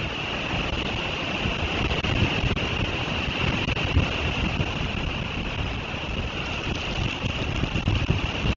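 Storm wind buffeting the nest camera's outdoor microphone in irregular low gusts, over a steady hiss.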